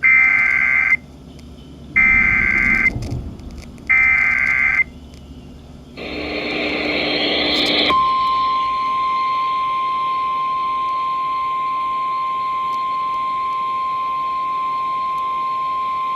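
Emergency Alert System activation. It opens with three one-second bursts of warbling data tones, the SAME header, about a second apart. About two seconds of hiss follow, then the steady single-pitch 1050 Hz weather-service warning alarm tone, held for about eight seconds.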